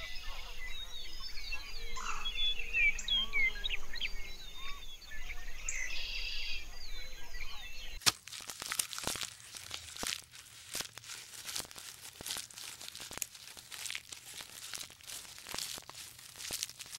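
Short bird chirps over a low steady hum; then, about halfway through, a sudden change to dense irregular crackling and tearing of leafy branches as a giraffe pulls leaves from a hanging bundle of browse.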